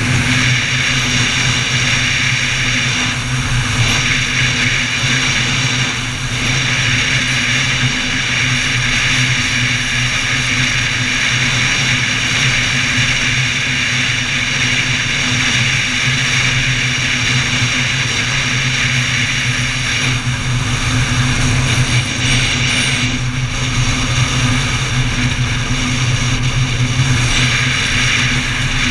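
Honda XL600V Transalp's V-twin engine running steadily at a cruise on the open road.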